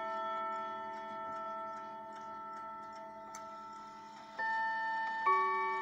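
Howard Miller Thomas Tompion triple-chime mantel clock chiming: struck chime notes ring on and slowly fade, a fresh note sounds about four and a half seconds in and another a second later, over the ticking of the movement.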